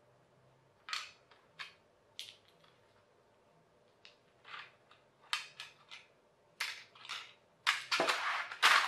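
Small plastic toy parts clicking as they are pressed together and handled, with scattered light clicks at first and a louder burst of clattering near the end as the pieces and jigsaw track tiles are pushed about.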